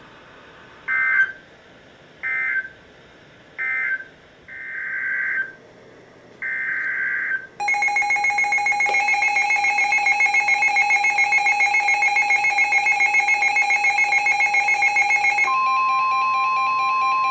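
Emergency Alert System signalling between two weather alerts: three short screeching digital data bursts, then two longer ones, followed by a loud electronic alert tone that pulses rapidly with several pitches. Near the end it gives way to a single steady alert tone.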